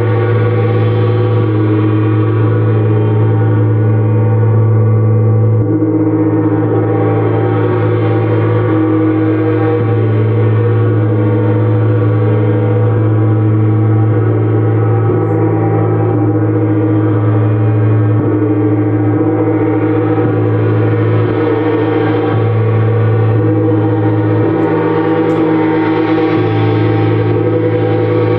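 Gongs played continuously in a sound-healing gong bath: a dense, unbroken wash of overlapping ringing tones over a deep hum, swelling and ebbing slowly with no single strike standing out.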